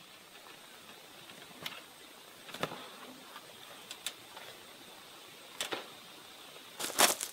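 Scattered clicks and knocks of a pair of French patio doors being unlatched and swung open, then footsteps as someone walks out through them; the loudest knocks come near the end.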